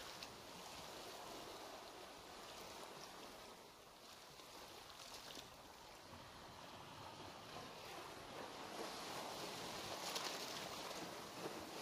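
Faint, steady underwater ambience of moving water, a soft even wash that grows slightly louder near the end.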